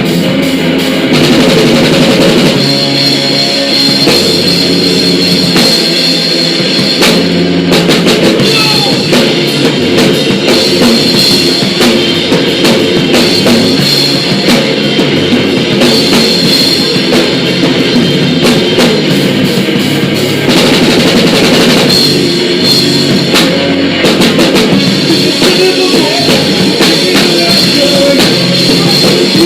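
Live rock band playing a song at full volume: electric guitar, bass and drum kit with a steady beat.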